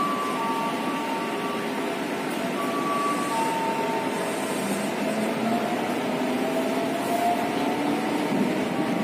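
Electric commuter train, a used former-Japanese unit, getting under way. The motor drive gives a few short steady tones that step upward at the start, then a tone that slowly rises in pitch as the train gathers speed. Under it runs a steady rushing noise.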